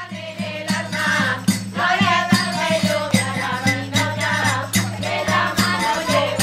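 A group of people singing a Spanish folk ronda song together in unison, with a rhythmic percussion beat of sharp strokes a few times a second and a steady low hum underneath.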